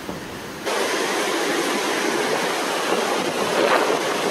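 A steady, loud rushing noise that cuts in abruptly just under a second in.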